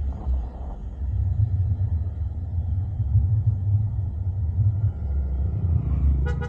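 Steady low rumble of a vehicle in motion. A short horn beep sounds right at the end.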